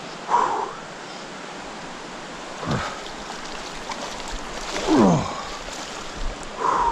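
Rushing mountain river: a steady wash of fast-flowing water. Four brief, louder sounds stand out about every two seconds, two of them sliding down in pitch.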